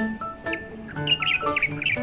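Background music of short, separate pitched notes, with a quick run of high bird-like chirps about halfway through.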